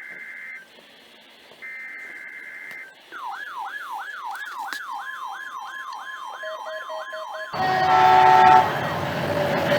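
Electronic siren and alarm sounds. First come long steady beeps, then a fast rising-and-falling siren wail of about three sweeps a second over a steady tone. About three-quarters of the way in, this cuts off suddenly into a louder chord of steady tones over a rushing noise, followed by a slowly gliding tone.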